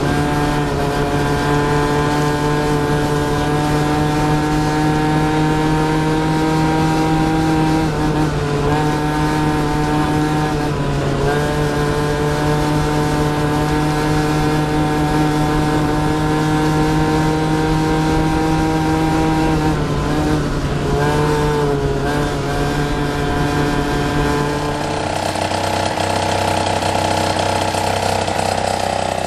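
Peugeot Speedfight scooter's two-stroke 70cc engine held at high, steady revs while riding, with its note dipping briefly three times as the throttle eases. Near the end the engine note changes to a different steady running sound.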